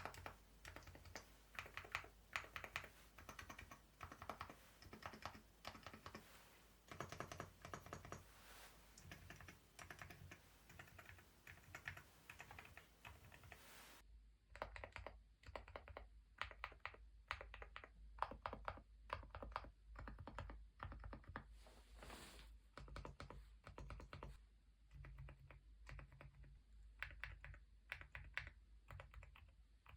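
Large stabilized keys on a mechanical keyboard with Epomaker Nude Rosa silent linear switches, pressed over and over in quick runs. Each press gives a soft, muted clack.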